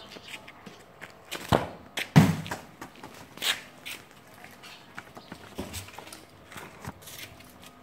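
Irregular knocks and scuffs on concrete, with footsteps among them. The loudest is a low thump about two seconds in, and smaller knocks come scattered after it.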